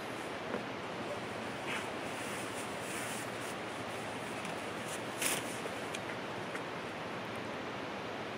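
Steady rush of running water from a nearby stream, with brief rustles of a nylon tent stuff sack being handled; the sharpest rustle comes about five seconds in.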